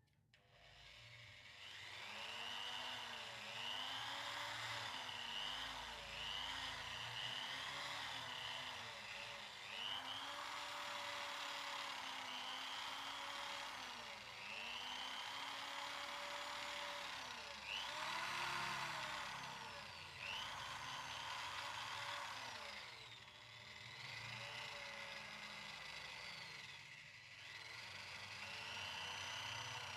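Electric drill fitted with a cloth polishing pad buffing a motorcycle engine block coated in Autosol polish. It starts about a second in, and its motor whine dips in pitch and recovers over and over.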